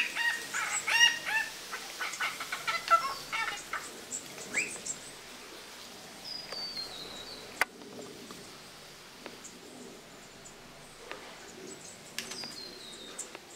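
Honeyeaters calling. A dense run of loud calls fills the first four seconds, then come scattered quieter notes, including two short falling high whistles. A single sharp click falls near the middle.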